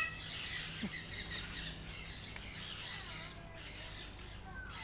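Birds chirping and squawking faintly here and there over a steady background hiss.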